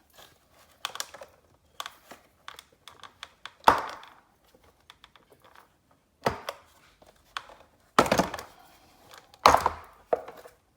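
Handling clicks and knocks as a plastic engine cover is pulled off its push-fit mounts by hand, with four loud sharp thunks as it pops free.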